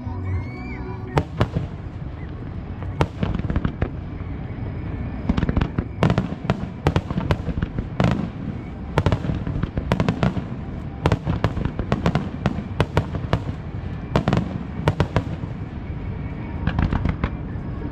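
Aerial fireworks bursting one after another: dozens of sharp cracks and booms, many coming in quick clusters, over a continuous low echo.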